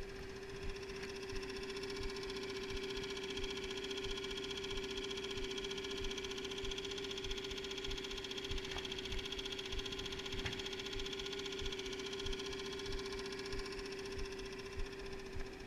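Small outboard kicker motor running steadily at trolling speed, a constant even drone.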